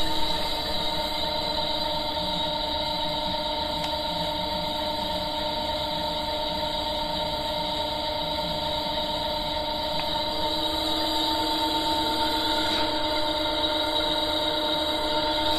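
A 0.75 kW three-phase gearmotor driving a permanent-magnet generator at a steady speed of about 511 rpm. It makes a constant machine hum with a steady whine over it.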